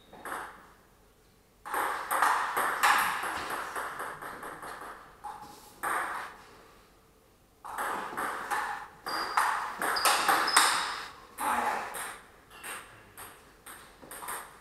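Table tennis ball being hit back and forth, quick sharp clicks off paddles and the table in two long rallies, the second starting about eight seconds in, with a few scattered bounces near the end.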